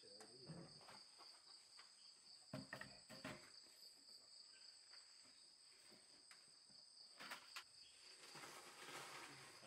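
Evening insect chorus: a faint, steady, high-pitched trill, with a few soft knocks now and then.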